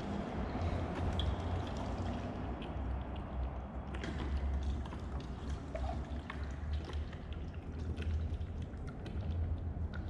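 Tap water poured steadily from a plastic jug into a plastic radiator coolant reservoir with rice inside, with a low rumble underneath.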